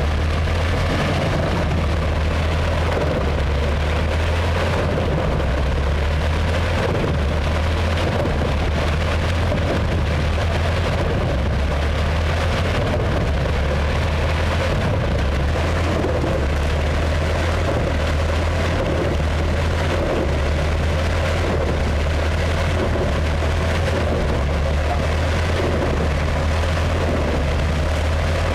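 Fendt tractor engine running steadily under load to drive an Eschelbach Biber wood chipper, a continuous low rumble with the chipper's noisy grinding of wood over it.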